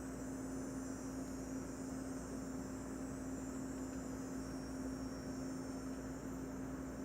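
A steady electrical hum under a constant low hiss, with a faint high whine that cuts off near the end.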